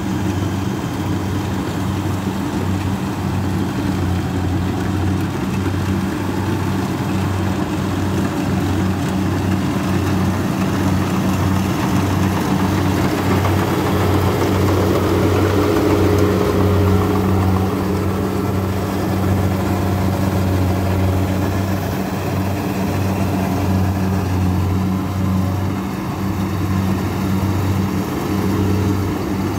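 Kubota DC60 combine harvester's V2403 four-cylinder diesel engine running steadily under load while it cuts and threshes rice. The result is a continuous low drone with a noisy mechanical layer over it.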